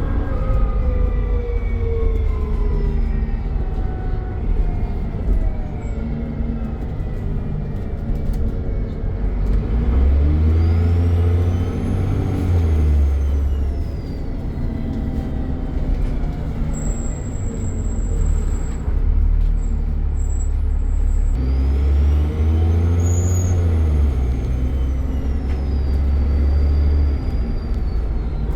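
Dennis Trident double-decker bus's diesel engine running, pulling away twice, about ten seconds in and again near the end. Each time the engine note swells and a high turbo whistle rises and then falls in pitch.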